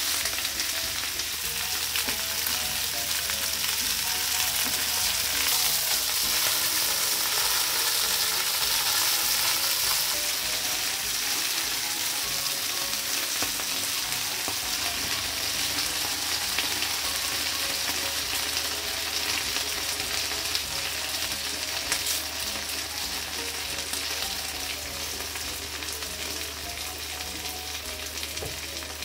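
Chicken pieces and green peppers sizzling in oil in a nonstick frying pan, a steady frying hiss, stirred and turned with a spatula.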